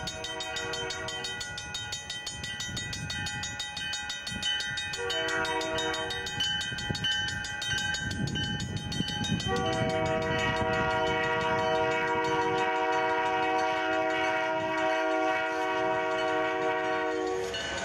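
CN freight train's lead diesel locomotive sounding its multi-chime air horn. A long blast ends about a second in, a short blast follows around five seconds in, and a final long blast runs from about ten seconds until shortly before the end, in the long-long-short-long pattern of a grade-crossing signal. Under the horn, the diesel engines' rumble grows louder as the locomotives draw near and pass.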